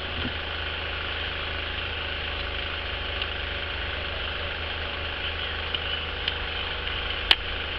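Steady low hum with a constant hiss of background noise, unchanging throughout; a few faint ticks and one sharp click near the end.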